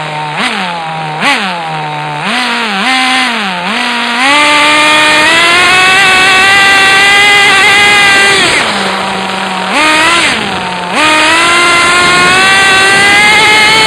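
Small engine of a radio-controlled car revving up and down: a few short throttle blips in the first four seconds, then two long high revs with a drop back to a lower steady pitch and a quick blip between them.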